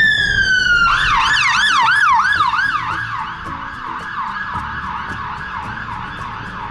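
Ambulance siren heard from inside a car, switching from a slow wail to a fast yelp about a second in; the yelp fades from about three seconds in as the ambulance moves off.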